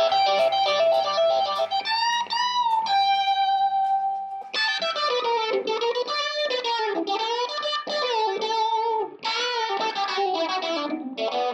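Electric guitar played through an amplifier as a lead line: single notes with string bends and vibrato, pitch sliding up and down, and one note held for over a second.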